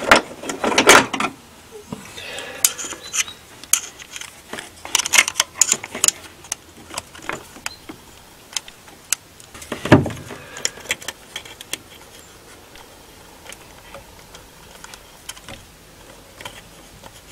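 Small metal tool clicking and scraping against the toothed cog and baseplate inside a Renault 4 distributor as the vacuum advance cog is prised upwards. A quick run of clicks comes near the start, another cluster about five seconds in, and a single louder knock about ten seconds in.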